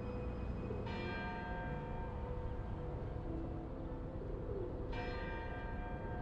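A large bell struck twice, about four seconds apart, each stroke ringing on with many overtones, over a steady low rumble.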